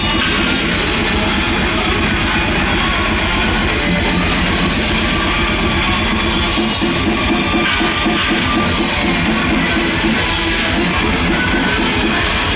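Metal band playing live, loud and continuous: distorted electric guitars over very rapid drumming.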